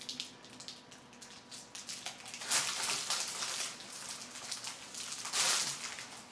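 Giant gummy bear being bitten and chewed close to the microphone: a string of small wet, sticky clicks, with two louder noisy bursts, one about two and a half seconds in and one near the end.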